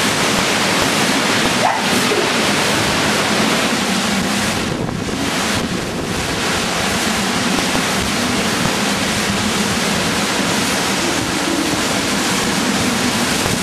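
Hurricane-force wind and driving rain, a loud steady rushing noise with wind buffeting the microphone. The noise eases slightly about halfway through.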